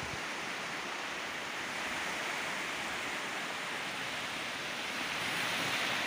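Ocean surf washing onto a sandy beach: a steady, even rush of waves that swells slightly a couple of seconds in and again near the end.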